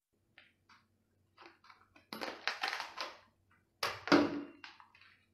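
The shell of a large cooked lobster cracking and crunching as it is twisted and torn apart by hand. Small crackles come first, then two loud bouts of crunching about two and four seconds in, then lighter crackles.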